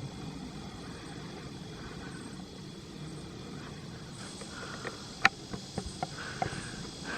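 Steady drone of insects along a wooded riverside trail, with footsteps on the trail setting in during the second half as a run of short sharp clicks, the loudest about five seconds in.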